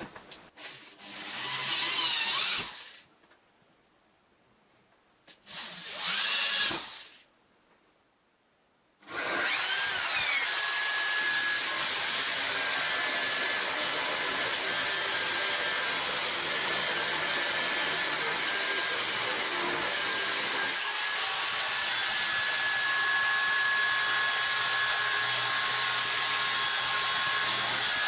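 Electric drill triggered in two short bursts, its motor whine rising and falling each time, then started again and left running steadily.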